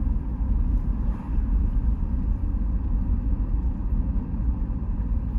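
Steady low rumble of a vehicle driving, with engine and road noise.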